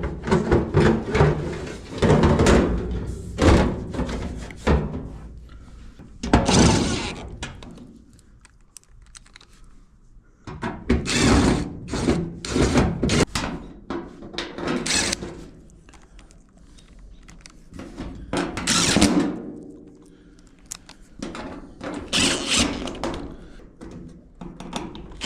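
Irregular clunks, knocks and clatter of a dryer's sheet-metal panels and parts being handled and fitted back together during reassembly.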